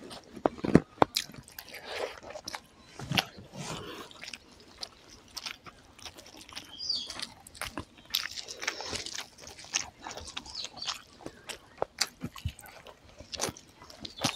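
Close-up chewing of a mouthful of rice and egg curry, with wet mouth clicks and smacks at irregular moments, while fingers squeeze and mix sticky rice and gravy.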